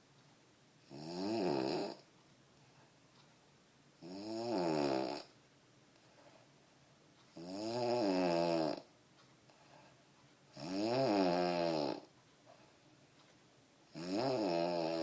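A man snoring in a regular rhythm: five snores about three seconds apart, each lasting about a second, with the pitch rising and falling within each snore.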